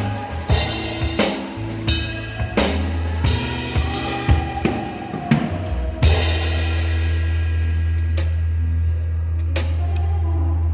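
Drum kit playing with a bass line: kick, snare and cymbal strikes over bass notes, then about six seconds in a low bass note held steadily, with a few scattered hits over it.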